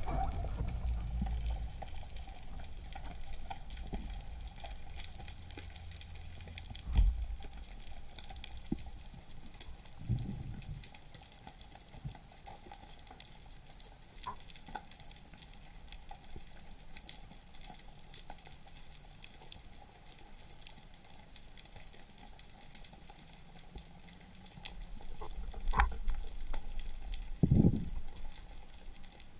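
Underwater ambience picked up by a camera in its housing while spearfishing: a steady faint crackle and hiss, with a few dull low thumps, the loudest near the end.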